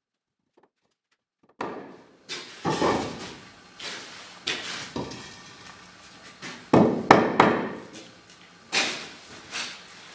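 Hollow clay walling blocks being set down and knocked into place on a wall: about nine irregular knocks and clunks starting about a second and a half in, each with a short echo.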